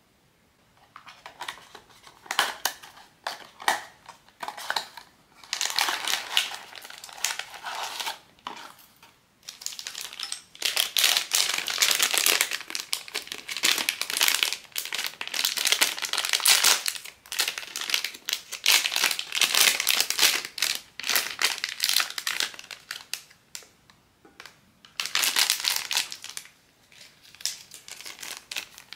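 POP MART blind-box packaging being unwrapped by hand, crinkling in irregular bursts with brief pauses.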